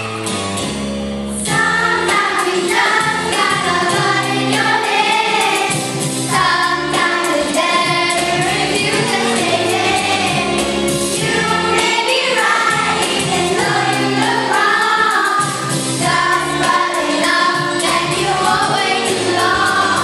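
A child sings a song into a microphone over an instrumental backing; the singing gets louder about a second and a half in.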